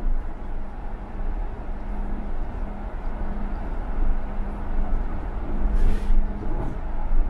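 City bus driving, heard from inside the cabin: a steady low rumble of engine and road noise with a faint hum, and a brief hiss about six seconds in.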